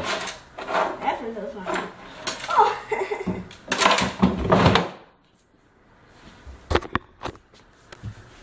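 A desk drawer being rummaged through and slid, with items knocking and clattering inside it, then a few sharp knocks near the end.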